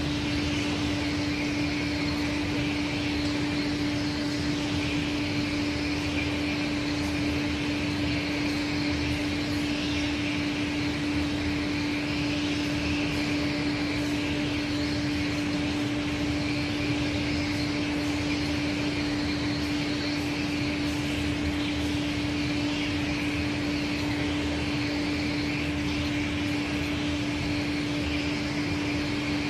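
1988 Aschersleben guideway grinding machine running with its tilted grinding head on the workpiece: a steady machine hum with one strong low tone, under a hiss that swells and fades slowly.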